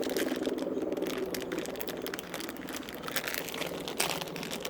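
Plastic candy bag of Trolli Sour Crunchy Crawlers crinkling as it is handled, a dense run of small crackles.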